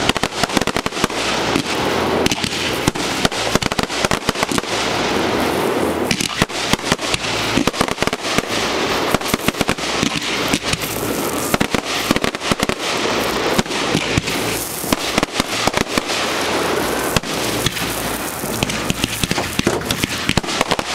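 Fireworks display at close range: a dense, unbroken barrage of sharp bangs and crackling, many reports every second.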